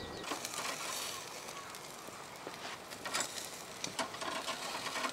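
Irregular close rustling and crinkling with scattered light clicks, the sound of things being handled right by the microphone.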